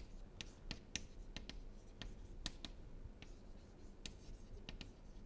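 Chalk writing on a chalkboard: faint, irregular short taps and scratches as words are written out.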